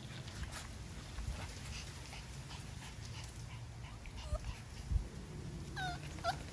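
Puppy whimpering: a few short, high whines, one about four seconds in and two close together near the end.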